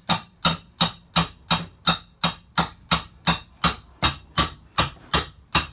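Claw hammer striking the head of a flat pry bar in steady, even blows, nearly three a second, driving the bar down through the rotted floor and styrofoam of a camper along the base of a cabinet.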